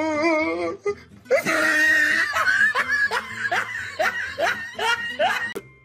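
A person laughing hard: a short wavering high laugh at the start, then, after a brief pause, a fast run of breathy 'ha' bursts, about three to four a second.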